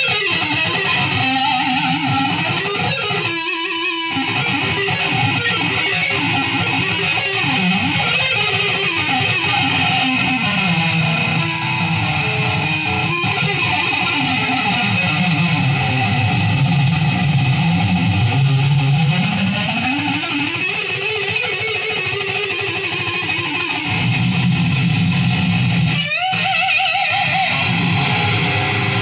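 Electric guitar played through effects, with sustained notes that slide and bend slowly up and down in pitch. There is a brief break in the sound about three and a half seconds in and another near the end.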